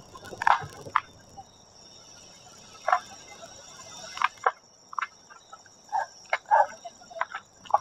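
A distant street carnival procession: scattered short, sharp calls and hits, more frequent toward the end, over a steady high-pitched trill like night insects.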